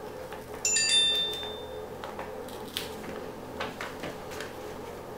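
A light metallic clink that rings briefly for about a second, followed by a few soft clicks and taps from small parts being handled on a workbench, over a faint steady hum.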